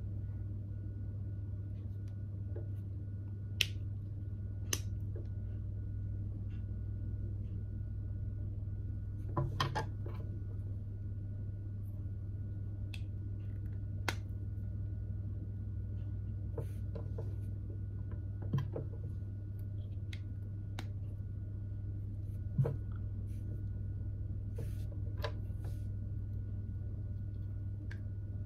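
LEGO pieces being handled and pressed together by hand: scattered light plastic clicks and taps a few seconds apart, with a quick run of them about ten seconds in, over a steady low hum.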